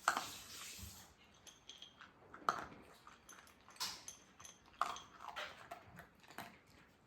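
Toy poodle breathing hard in short, irregular breathy puffs, about one every second or so: anxious breathing from fear of the heavy rain.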